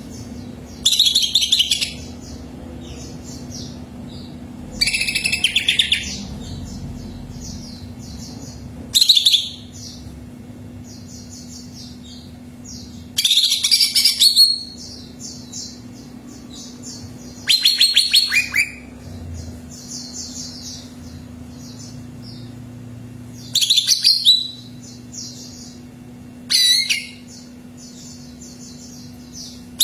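Cucak ijo (green leafbird) singing: seven loud, rapid high-pitched phrases of about a second each, spaced a few seconds apart, with softer quick chirping in between. A steady low hum runs underneath.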